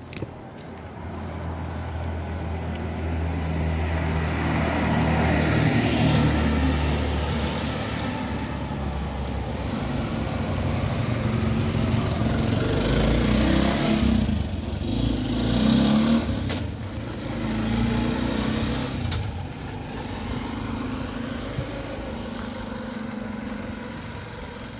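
Motor traffic passing close by on a street. An engine drone builds over the first few seconds, more engine and road noise goes by through the middle, and it eases off toward the end.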